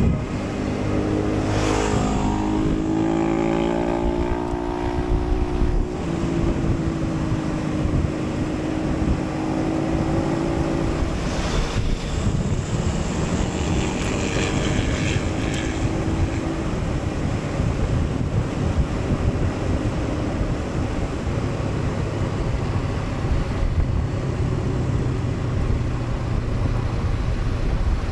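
Honda CB500X's parallel-twin engine running as the motorcycle is ridden, its pitch rising and falling with throttle and gear changes, with wind noise on the microphone.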